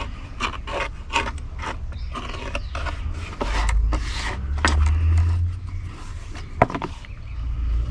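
Glued leather knife sheath being sanded by hand: quick scratchy back-and-forth strokes, about two or three a second at first, thinning out in the second half, with a low rumble in the middle and a sharp tap near the end.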